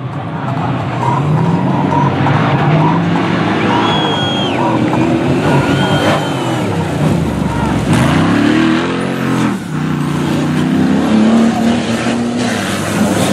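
Engines of several off-road trial 4x4 buggies revving hard and rising and falling in pitch as they accelerate away over loose dirt, with two short high steady tones partway through.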